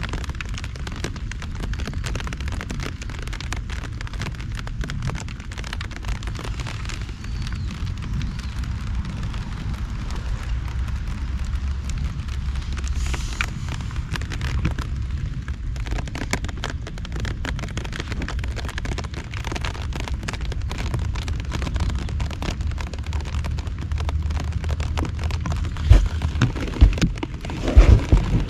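Heavy typhoon rain falling steadily, a dense patter of drops over a low rumble. Several louder thumps near the end.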